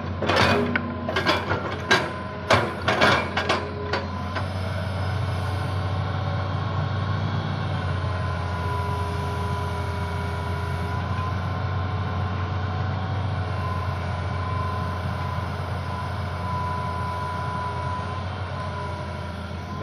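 Hydraulic excavator's diesel engine running steadily at working revs. There is a run of sharp knocks and clanks in the first four seconds, and a faint steady whine through the middle.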